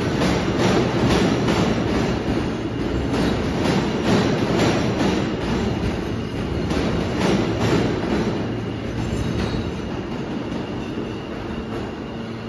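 R160A subway train running out of the station into the tunnel, its wheels rumbling and clacking over the rail joints. The sound fades gradually as the train pulls away.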